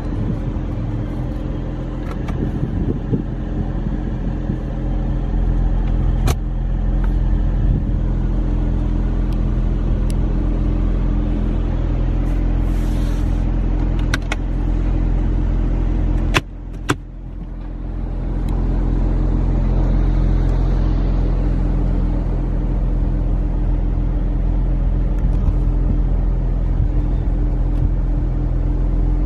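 2017 Mercedes-AMG C43's twin-turbo V6 idling steadily, heard from inside the cabin. A few sharp clicks come about halfway through, after which the sound dips briefly and then builds back up.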